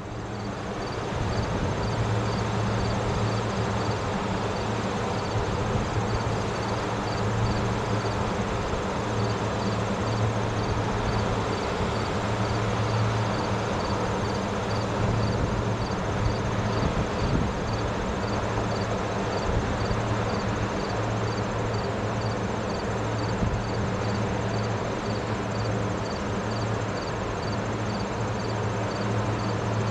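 A steady machine drone with a low hum, and a faint high chirp repeating about twice a second over it.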